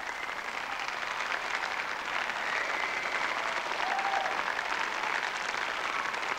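Concert audience applauding: steady clapping at a live rock show, with no music playing.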